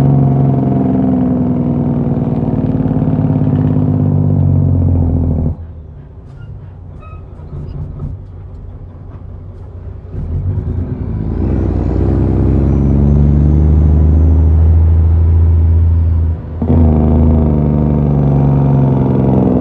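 Western Star truck's diesel engine heard from inside the cab, pulling under load. It drops away to a low idle about five seconds in, builds back up near ten seconds, and pulls steadily again. It dips briefly about two-thirds of the way through as a gear is shifted.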